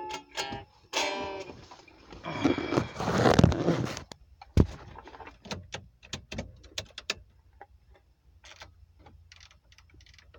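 Acoustic guitar notes ending in a strummed chord about a second in, then loud rustling and a sharp knock as the recording phone is handled and moved, followed by a run of small clicks and taps that thin out toward the end.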